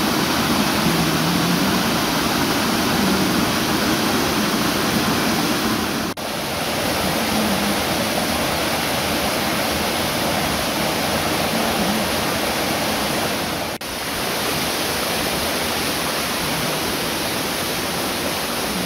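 Steady rush of fast-flowing water in a stone-lined stream channel, with two brief drop-outs about six and fourteen seconds in.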